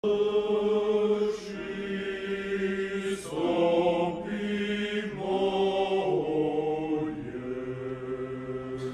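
Choir singing slow, sustained chords, moving to a new chord about every two seconds, with soft sung consonants at the changes.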